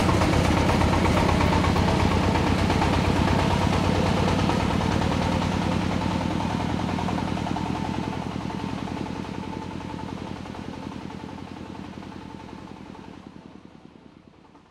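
Engine of a small open farm truck chugging in rapid, even beats as it pulls away, fading steadily until it dies out near the end.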